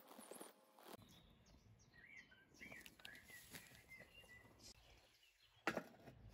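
Faint bird chirps in the background, then about a second before the end a single sharp knock as a glass beaker is set down on an electric hot plate.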